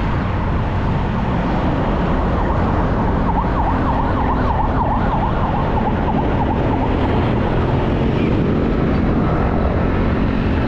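Steady road and engine noise from a vehicle moving in traffic. From about three seconds in, a siren yelps rapidly up and down for a few seconds.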